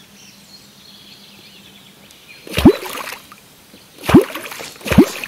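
Wooden catfish clonk struck into the river surface three times, about two and a half, four and five seconds in. Each strike is a loud, deep, hollow clonk whose pitch drops sharply, the sound used to draw wels catfish up to the bait.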